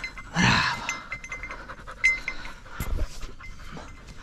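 Small bell on a boar-hunting dog's collar clinking irregularly as the dog moves, with rustling through undergrowth and one dull thump a little before three seconds in.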